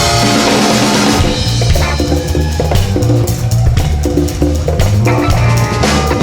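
Live funk band playing: a drum-kit groove with bass drum and snare over a moving bass line, the horns dropped out.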